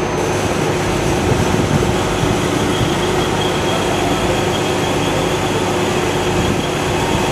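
Heavy work trucks' engines running steadily, a constant mechanical drone with a steady hum and a faint high whine.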